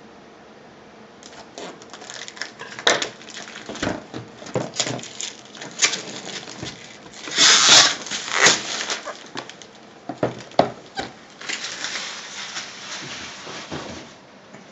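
Plastic shrink-wrap being torn and peeled off a laptop box: irregular crinkling and rustling with sharp crackles, loudest in a burst about halfway through.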